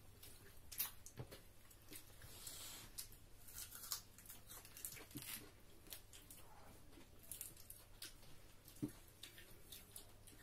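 Faint eating sounds: fingers mixing rice and food on plates, chewing, and scattered light clicks.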